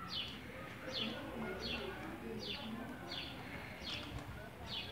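A small bird repeating a short, high, falling chirp about three times every two seconds, over a faint murmur of voices.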